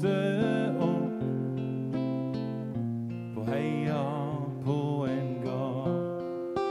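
Live band playing an instrumental passage, led by acoustic guitar with bass and keys underneath. A melody line with vibrato rises and falls through the middle.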